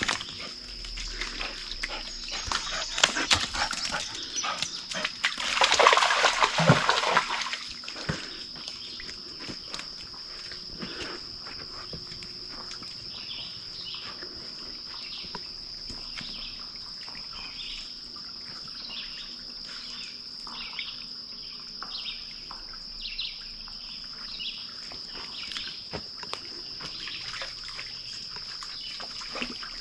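A Labrador splashing and scrambling through a shallow rocky creek for the first several seconds, then quieter paw steps over wet rock. A steady high-pitched insect drone sits underneath, and from about halfway a short chirp repeats a little more than once a second.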